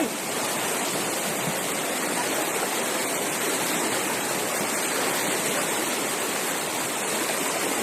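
Fast-flowing, rain-swollen forest creek rushing steadily, a continuous hiss of strong current over the streambed.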